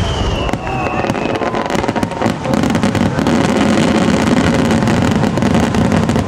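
Aerial fireworks shells bursting overhead, with a dense, continuous crackle of many small pops from crackling stars and a falling whistle in the first second.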